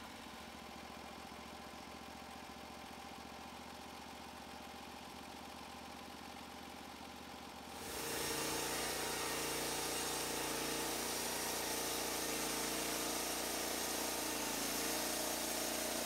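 A steady engine-like hum, then about eight seconds in a sudden step to a louder, brighter, steady sound: a Norwood LumberPro HD36 portable band sawmill with its band blade sawing through a log.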